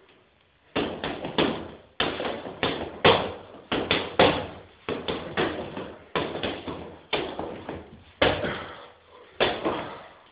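Kickboxing punches and kicks landing on a striking target, one sharp smack after another in quick combinations of two or three, starting about a second in and running on, each hit ringing briefly in the room.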